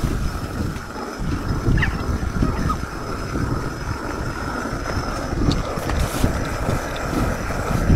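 Stone hand quern grinding wheat: the upper millstone is turned by its wooden handle over the lower stone, making a continuous low grinding rumble.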